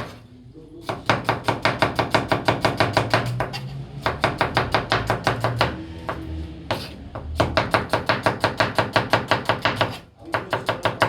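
Kitchen knife rapidly chopping onion on a cutting board, about eight quick strokes a second, in three runs with two short pauses.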